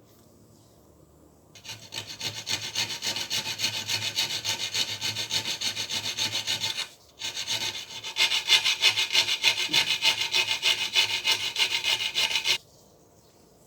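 Hand abrading on an old screwdriver being restored: fast, even back-and-forth rubbing strokes in two runs of about five seconds each, with a short break between them, the second run louder.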